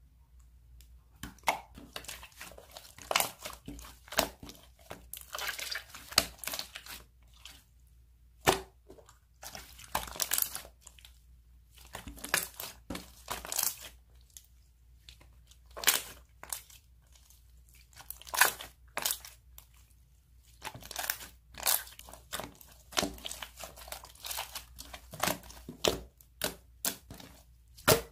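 Slime being handled: irregular runs of sharp clicks and crackles as it is pressed and stretched, with short quiet gaps between them.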